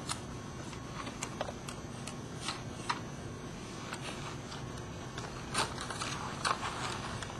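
Faint, irregular light clicks and rustles of hands handling small plastic fibre-optic connector parts while threading a fibre through the connector body, over a steady low hiss.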